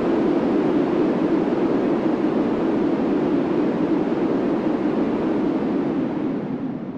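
Steady rushing noise of an Arrow Dynamics looping roller coaster's train running along its steel track, easing off slightly near the end.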